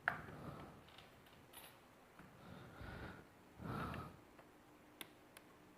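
Quiet handling of a laptop during disassembly: a sharp click at the start and two small clicks about five seconds in, with two soft breaths through the nose in between.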